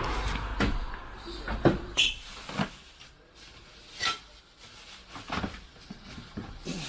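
Furniture being handled: a series of separate knocks and clunks, about seven spread over several seconds, the loudest in the first two seconds.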